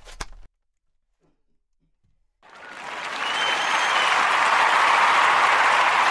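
The end of a hip-hop track cuts off about half a second in. After about two seconds of silence, crowd applause fades in and holds steady.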